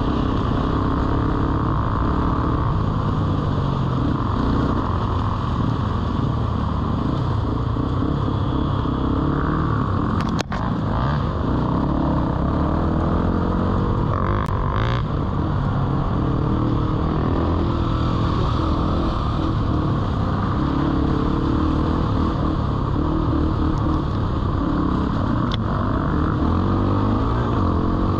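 Yamaha TT-R230 dirt bike's single-cylinder four-stroke engine, fitted with a Big Gun aftermarket exhaust, running on and off the throttle as the bike is ridden. A sharp knock comes about ten seconds in and another near the end.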